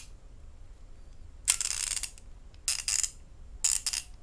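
A chrome steel socket clicking onto and off the square drive of a 1/2-inch drive quick-release ratchet, with its release button pressed: a sharp metallic snap and rattle about a second and a half in, then two shorter metallic clicking rattles.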